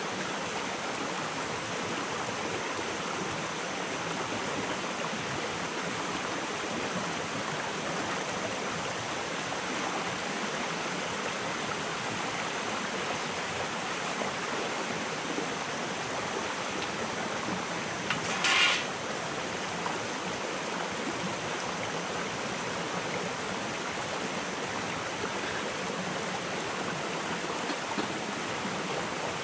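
Steady rushing of a small stream flowing over rocks, with one brief, louder noise about two-thirds of the way through.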